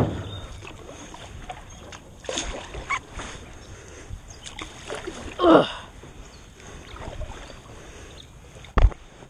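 Canoe being paddled: paddle strokes and splashes in the water, with a sharp knock of the paddle against the canoe at the start and another near the end. A short, loud sound gliding down in pitch comes about halfway through.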